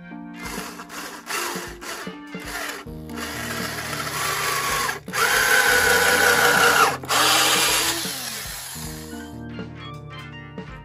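Cordless drill boring into a wooden post in several runs with short pauses, its motor whine loudest about halfway through. Background music plays throughout.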